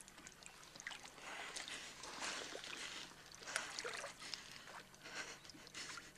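Faint lapping and splashing of lake water, irregular, a little louder about two seconds in and again near four seconds.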